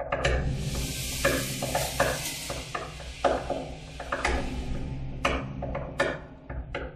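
Horror sound effects: irregular knocks, one or two a second, over a steady low drone, with a hissing rush that swells in just after the start and fades out about halfway through.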